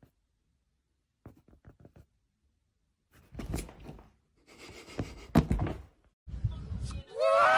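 A few light clicks, then a run of thuds and knocks, then a loud held tone that rises at its start, beginning near the end.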